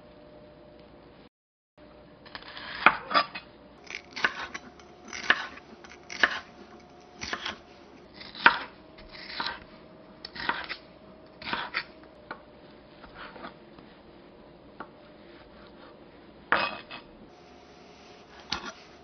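Chef's knife cutting yellow bell pepper into strips on a wooden cutting board, with a crisp slice and a knock on the board about once a second. Near the end come a few single cuts into a block of tofu.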